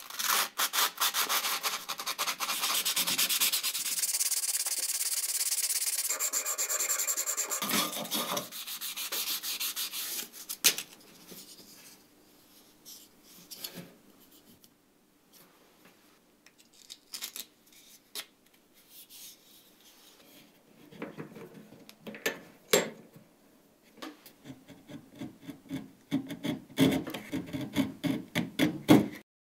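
The wooden handle of an Opinel No. 7 pocket knife is rubbed back and forth on a sheet of sandpaper in quick, even strokes for about ten seconds. Then come soft handling sounds and a couple of knocks. Near the end a round needle file rasps in short strokes inside the handle's blade slot.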